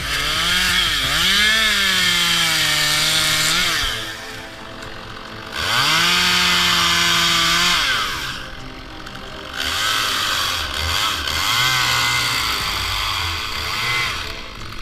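Chainsaw cutting wood in three bouts: each time the engine pitch swoops, then holds steady under load, dropping to a quieter idle between cuts.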